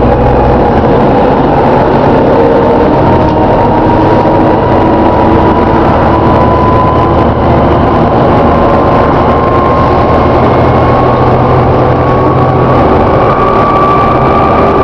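Volvo B7TL double-decker bus running with a loud groaning noise: a whine that rises slowly and steadily in pitch over a steady engine drone.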